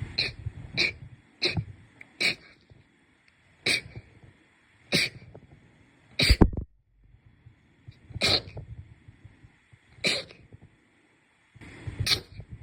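A person sneezing again and again, about ten sharp sneezes one to two seconds apart, the loudest just past the middle.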